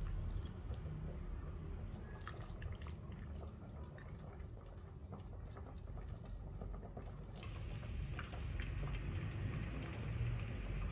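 Clay pot of black chicken soup simmering, with small splashes and knocks as lotus root, carrot and other vegetables are tipped in from a ladle. A faint bubbling hiss grows from about seven seconds in.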